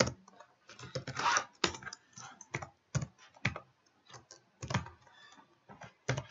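Typing on a computer keyboard: irregular keystrokes with short pauses between them.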